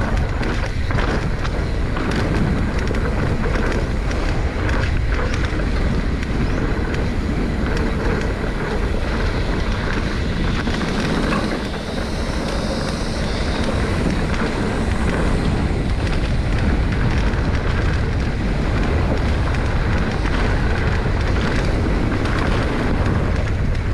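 Wind buffeting the camera microphone over the rumble and rattle of a Giant Trance X 29 mountain bike riding down a rough dirt trail, with a steady run of small clatters from the bike and tyres.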